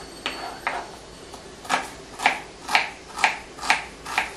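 Kitchen knife slicing red onion on a wooden cutting board: a few light cuts at first, then a steady run of sharper knife strikes on the board, about two a second.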